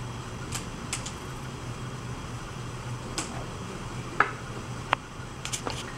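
Electric potter's wheel humming steadily, with several short sharp clicks and taps scattered through, the loudest a little over four seconds in.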